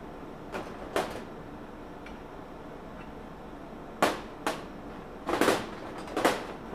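Sharp metallic clanks and knocks of hand tools against metal while unbolting the electric motor from a golf cart engine: about six separate hits, two early and a cluster in the second half, one of them a short rattle.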